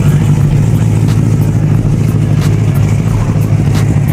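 A car engine idling steadily, with an even low hum that holds at one pitch.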